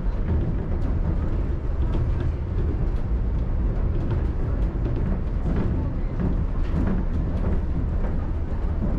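Shonan Monorail suspended rubber-tyred train running between stations: a steady low rumble with scattered light ticks and knocks.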